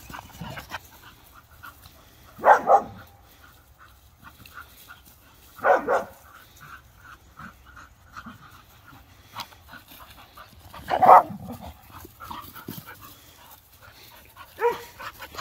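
Dogs barking during rough play: four short bouts of loud barks a few seconds apart.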